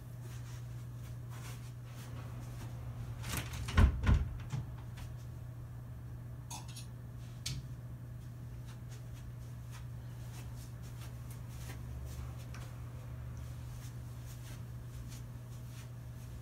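Steady low room hum with a brief cluster of knocks and clatter about four seconds in, the loudest sound, followed by a single faint click a few seconds later.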